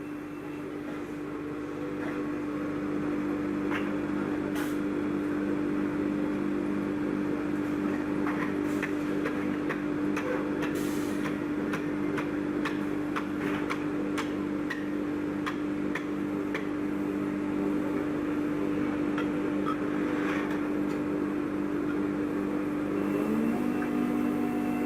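CNC wood lathe running, its servo-driven spindle giving a steady machine hum, with scattered sharp clicks and knocks over it. Near the end the hum steps up in pitch as the machine changes speed.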